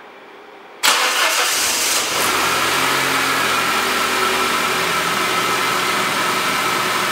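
Saab B204 2.0-litre turbocharged four-cylinder engine starting up after its sump refit and fresh oil fill: it fires about a second in and settles into a steady idle.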